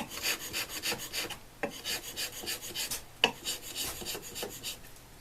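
The flat back of a steel chisel rubbed to and fro on fine abrasive paper, quick scraping strokes about five a second with a few knocks, dying away near the end.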